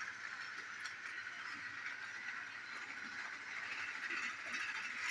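Battery-powered toy train of James the Red Engine running along plastic track, its small motor and gears giving a steady whir.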